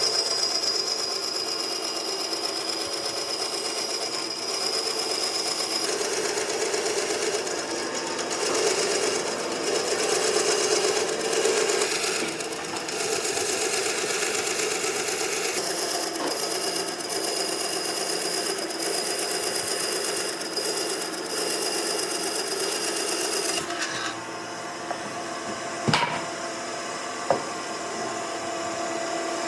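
A power tool running steadily on wood, dropping a little in level after about 24 seconds, with two sharp knocks near the end.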